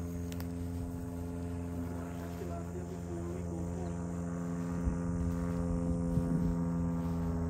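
Insects chirping in a pulsing rhythm over a steady low hum made of several fixed tones.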